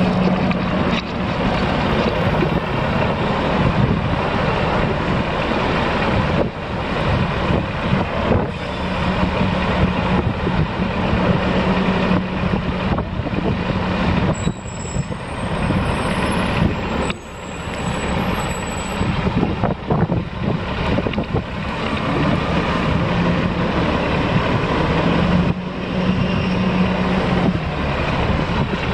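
Steady city street noise heard while riding a bicycle: a continuous rush of traffic and wind, with a low engine hum coming and going.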